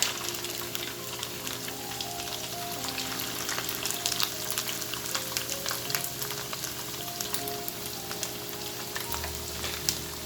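Marinated chicken pieces frying in hot oil in a pan, a steady sizzle full of quick crackling pops of spattering oil.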